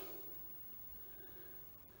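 Near silence: faint room tone, with the tail of a spoken word fading away at the very start.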